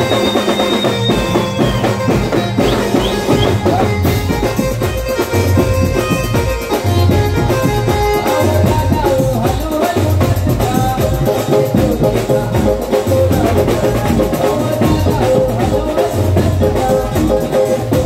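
Live band music: drums keep a steady beat under a melody, with shaker-like percussion. No words are picked out.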